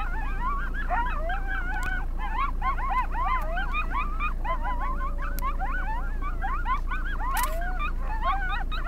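Coyotes yipping and howling together, many quick rising and falling yips overlapping throughout, with one longer, level howl about five seconds in.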